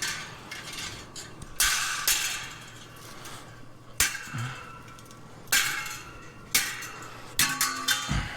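Pieces of scrap steel clanking against each other as they are picked up and dropped, several separate metallic clanks with a short ringing tail.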